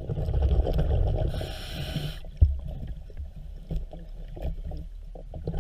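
Diver breathing underwater through a regulator: a hissing breath with bubbling and gurgling in the first two seconds, a sharp tap a little before halfway, then quieter with scattered small clicks.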